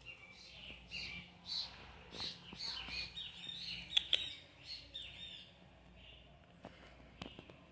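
A bird chirping: quick, high calls, several a second, for about five seconds, with two sharp clicks about four seconds in.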